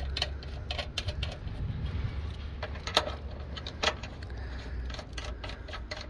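Brass caps being threaded back onto a mini split's refrigerant service valves by hand, giving a string of small, irregular metal clicks and ticks, sharpest about halfway through, over a low, steady rumble.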